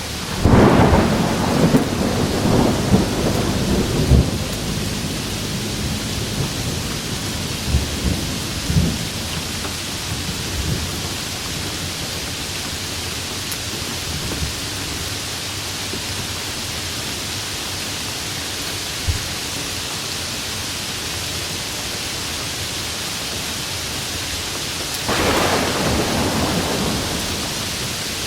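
Steady heavy rain in a thunderstorm. A thunderclap opens with a sharp crack and rumbles on for about four seconds, a few smaller cracks follow a few seconds later, and a second roll of thunder comes near the end.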